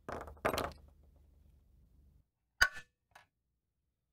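Red plastic toy rockets rattled together in the hand twice, then a sharp click and a fainter second click as a rocket is set into the steel launcher clip of a 1956 Nylint Electronic Cannon Truck.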